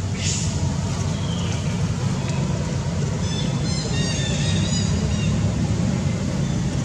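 Steady low rumble of background traffic, with a short high-pitched call partway through.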